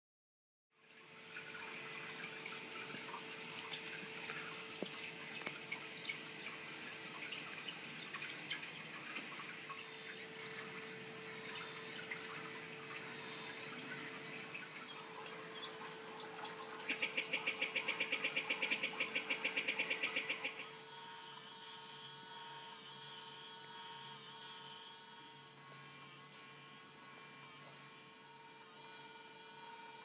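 Small electric motor salvaged from an MO drive whirring steadily with a constant hum as it drives a bird automaton's wood, aluminium and nylon mechanism. A little past the middle a louder, rapid buzzing rattle of about six pulses a second lasts about three and a half seconds.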